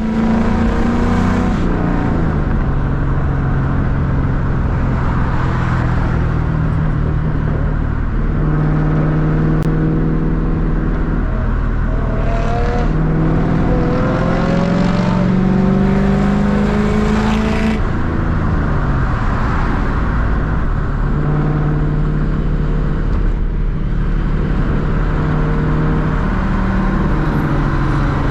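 Ford Mustang 4.6-litre V8 running under load on the road. Its pitch climbs under acceleration and drops back at gear changes several times.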